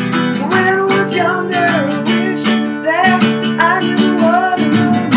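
Classical guitar strummed steadily, chord after chord, the strokes ringing over one another.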